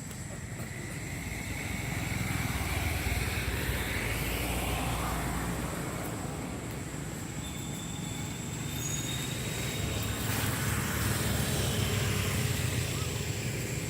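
Steady low rumble of passing road vehicles, swelling and fading over a few seconds, with a faint steady high-pitched whine throughout.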